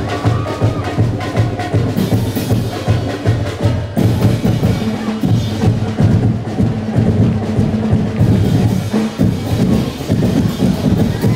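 Sinulog festival dance music from a drum-heavy percussion ensemble: bass drums, snare drums and wood blocks beating a dense, steady rhythm, with a held low note joining about halfway through.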